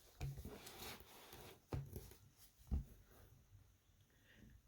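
Faint handling of a children's board book: a rustle of the pages being turned lasting just over a second, then two soft knocks about a second apart.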